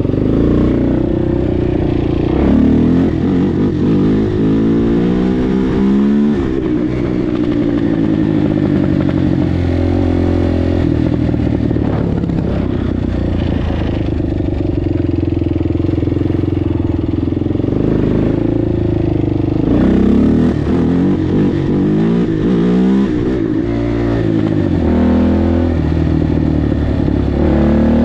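Kawasaki KFX400 quad's single-cylinder four-stroke engine running hard under the rider. Its pitch climbs steeply as it accelerates and drops back, most clearly a few seconds in and again about two-thirds of the way through.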